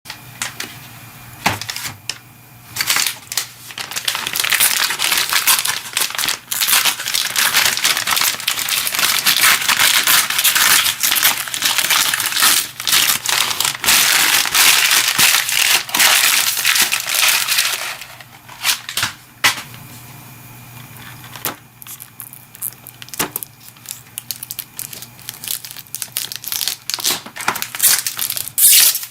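Packaging crinkling and rustling by hand, with many sharp crackles and clicks as a parcel is handled and opened. Busy and loud for most of the first two-thirds, quieter for several seconds, then picking up again near the end.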